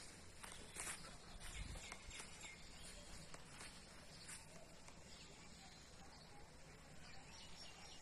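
Faint outdoor ambience with scattered short, high chirps and clicks, more of them in the first few seconds.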